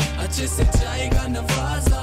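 Background music: a hip-hop-style track with a steady beat.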